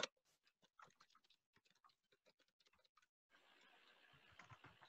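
Faint computer keyboard typing: scattered soft key clicks, sparse in the middle and more frequent near the end.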